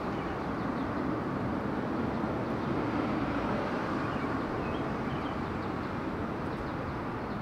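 Steady outdoor city ambience: a continuous rumble of distant traffic that swells a little a few seconds in, with a few faint high chirps.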